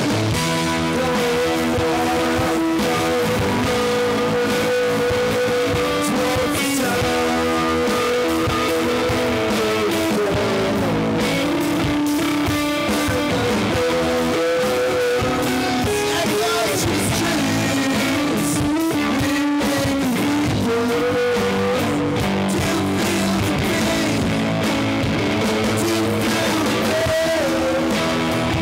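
Live rock band playing: electric guitar strumming over a Ludwig drum kit, with a man singing into a microphone.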